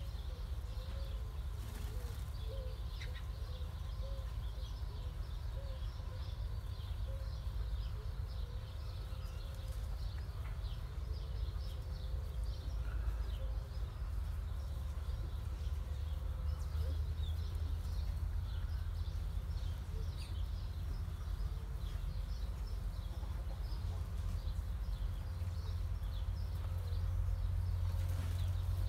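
Birds chirping and calling in many short, scattered notes over a steady low rumble.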